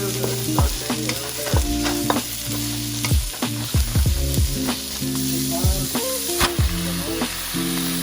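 Food frying in a hot pan, a steady sizzling hiss.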